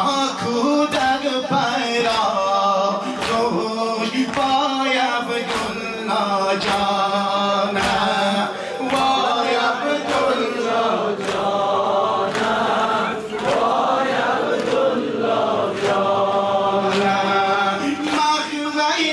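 A group of men chanting a Shia Muharram mourning lament (noha) in chorus. A steady beat of strikes from the mourners' ritual beating keeps time under the chant.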